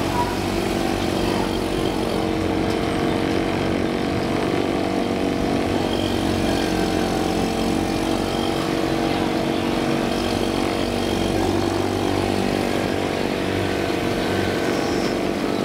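Small Yamaha outboard motor on an inflatable bumper boat running steadily under way, with the motors of other bumper boats nearby.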